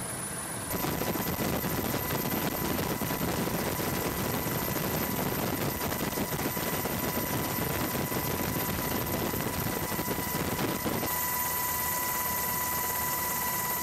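Steady engine and airflow noise of an aircraft in flight, with a steady high whine running through it. The sound steps up abruptly about a second in and shifts again near the end.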